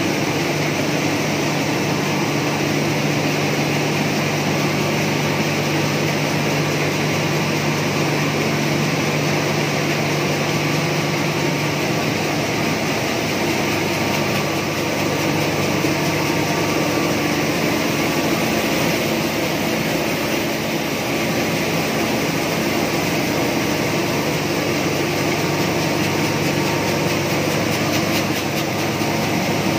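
Electric-driven rice mill running: a loud, steady mechanical din of the hulling and polishing machinery with rice pouring through the chutes. A low hum underneath drops away about twelve seconds in.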